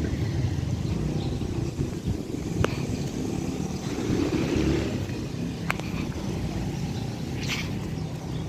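Steady low rumble of road traffic, with two brief sharp clicks.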